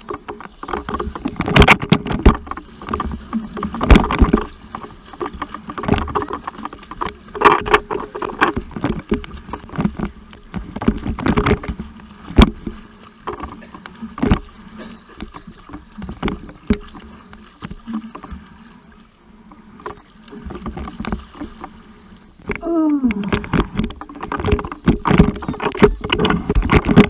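Sea water sloshing and splashing around the microphone in irregular gushes, with many sharp knocks and a quieter lull partway through.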